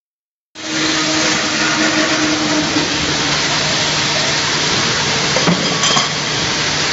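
Circular-saw tube-cutting machine running, a steady motor hum under a loud hissing noise that cuts in abruptly about half a second in. A brief knock about five and a half seconds in.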